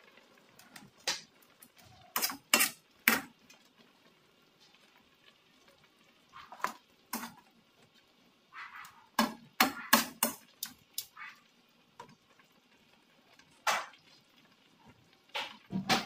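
A metal fork clinking and scraping against a metal wok while turning pieces of pork hock in their braising sauce. There are a dozen or so sharp clinks at irregular intervals, several in quick succession around the middle, with quiet stretches between.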